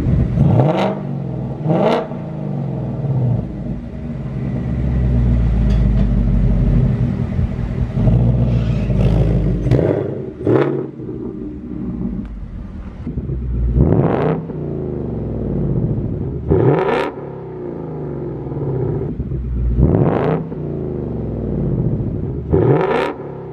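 Ford Mustang Mach 1's 5.0-litre V8 idling and being revved repeatedly through its factory exhaust with a Corsa double X-pipe fitted, each rev a quick rise and fall in pitch, about seven in all.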